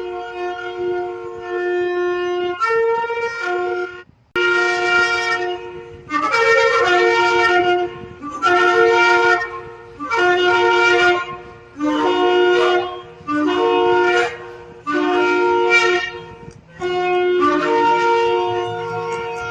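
A shofar (ram's horn) blown in a series of blasts: a long held note, then repeated blasts of a second or two each with short breaks between them, several opening with a quick jump up in pitch.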